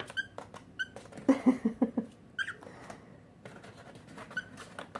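Cockatiels moving about inside a brown paper bag: the paper crackles and rustles under their feet, with a few short high chirps.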